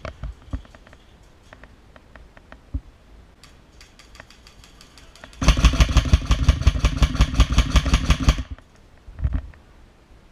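Airsoft gun firing a full-auto burst of about three seconds, a fast even rattle of roughly ten shots a second, a little past the middle. Before and after it come scattered light clicks of handling.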